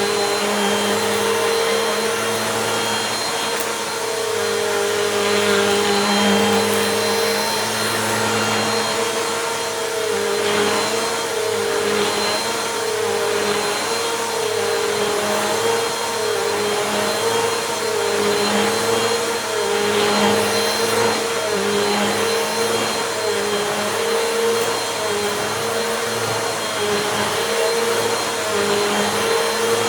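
Bissell compact vacuum cleaner running steadily while it is pushed back and forth over a rug, its motor hum wavering slightly in pitch with the passes. It is picking up crunchy dirt.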